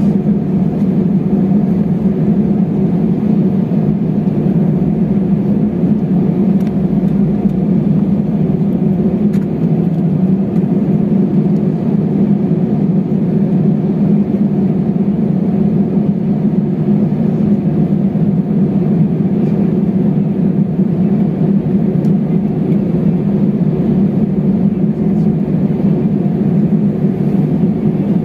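Steady low hum of an airliner's jet engines and air system heard from inside the cabin while the plane taxis on the ground.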